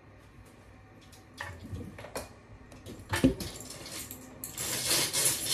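Kitchen handling sounds: a few separate knocks and clinks, then water starts running from a tap about four and a half seconds in, a steady rushing hiss.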